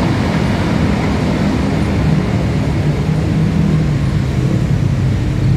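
Road traffic: motorcycles and other vehicles passing, with a steady low engine hum that slowly drops in pitch.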